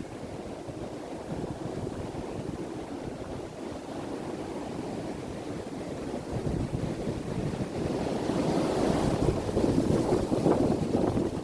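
Strong wind gusting against the microphone: an irregular rumbling rush that builds from about six seconds in and grows louder toward the end.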